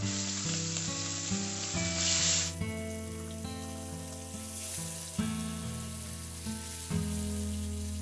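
Marinated puti (small barb) fish frying in hot oil in a steel wok: a dense sizzle that starts as the fish go in and is loudest for the first couple of seconds, then settles to a steadier sizzle. Soft background music plays underneath.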